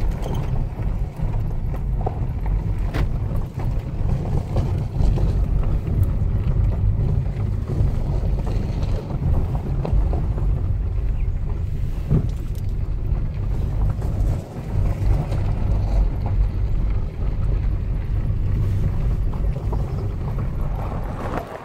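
Car cabin noise while driving slowly over a gravel drive: a steady low rumble of engine and tyres.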